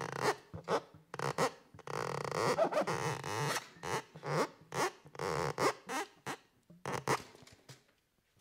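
Found objects scraped and rubbed with a thin rod and picked up by contact microphones: a run of short, irregular scraping strokes, with one longer, denser scrape about two seconds in, thinning out near the end.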